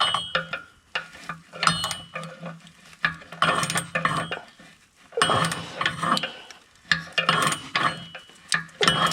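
Ratchet wrench being worked in strokes on an oxygen-sensor socket, with metallic clicking and clinking in repeated bursts and brief pauses between strokes.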